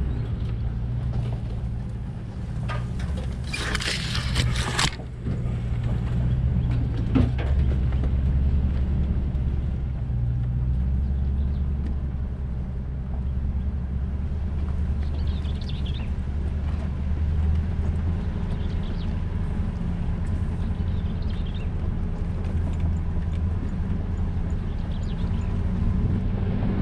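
Off-road vehicle driving slowly on a dirt track: a steady low rumble of engine and drivetrain. About three and a half seconds in, brush scrapes along the sides of the vehicle for a second or so, and a sharp click comes near seven seconds.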